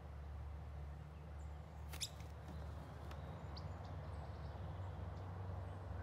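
Faint outdoor ambience: a steady low rumble with a few faint, high, short bird chirps, and a single sharp click about two seconds in.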